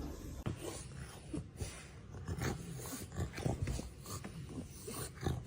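A dog making a string of short, irregular sounds, mixed with scattered clicks and knocks.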